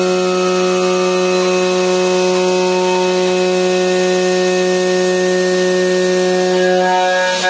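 CNC aluminium profile machining center's spindle running an end mill through aluminium, a steady whine over the hiss of the cut. Near the end the sound dips briefly and the whine shifts slightly.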